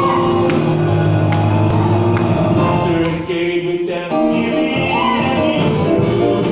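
Samoan church choir singing a hymn together, with instrumental accompaniment and a steady beat. The singing eases briefly about halfway through.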